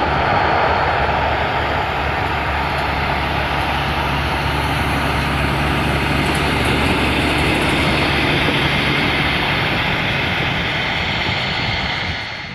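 MD-82's Pratt & Whitney JT8D turbofans running loud under reverse thrust during the landing roll-out, easing off somewhat after the first couple of seconds. The sound fades out near the end.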